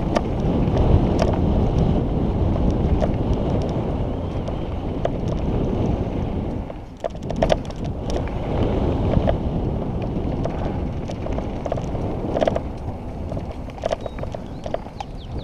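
Downhill mountain bike descending a dirt and gravel trail at speed, heard from a helmet camera: wind rushing over the microphone and tyres rumbling on the ground, with scattered sharp clatters from stones and the bike. Briefly quieter about seven seconds in, then a cluster of clatters.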